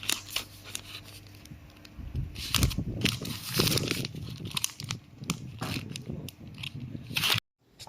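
Close handling noise: many small clicks and crinkly rustles, busier and louder from about two seconds in, cutting off abruptly near the end.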